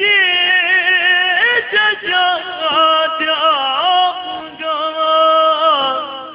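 Yakshagana bhagavata singing a devotional verse to the goddess, long held notes ornamented with bends in pitch, over a steady low drone.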